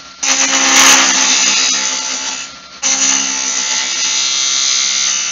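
Skew chisel, long point down, cutting a spindle turning on a Jet wood lathe: a steady hissing cut over the lathe's motor hum. The cut eases off for a moment a little past halfway, then resumes.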